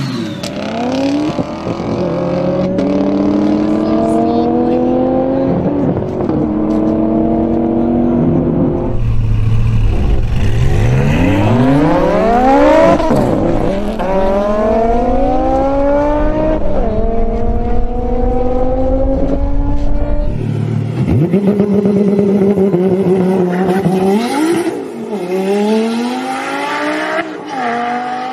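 Twin-turbo Audi R8 engine at full throttle, its pitch climbing steeply and then dropping at each gearshift as it pulls through several gears, over a few separate runs.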